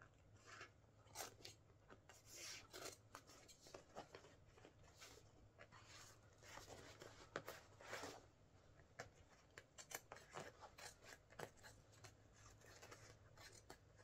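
Fabric of a Wellensteyn Schneezauber jacket being cut with scissors and handled: faint, irregular snips, crackles and rubbing of the material.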